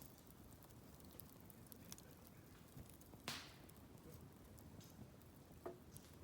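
Wood fire crackling quietly with scattered small snaps, and two louder pops, about three and about five and a half seconds in.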